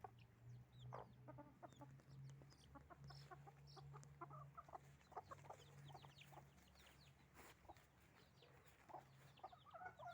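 Faint clucking of hens with the high, rapid peeping of a brood of three-week-old chicks: many short, falling cheeps.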